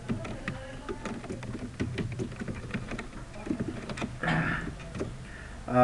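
Computer keyboard being typed on: a run of irregular key clicks as a short phrase is entered.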